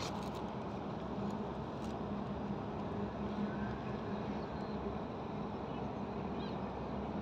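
Steady outdoor background rumble with a faint low hum that comes and goes, and a few faint ticks in the first two seconds.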